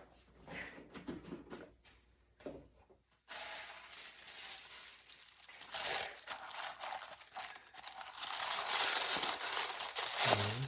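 Packaging wrapping being crinkled and rustled by hand: a few light handling taps at first, then steady crinkling from about three seconds in that grows louder toward the end.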